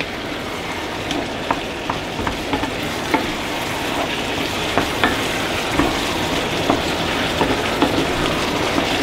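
Mushrooms, onions and tomato frying with a steady sizzle in a cast-iron pot as a wooden spoon stirs them, with scattered light knocks and scrapes of the spoon against the pot.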